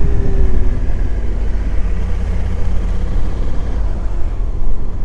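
Motorcycle on the move, heard from the rider's position: steady wind rumble on the microphone over the running engine, whose faint note sags slightly in the first second.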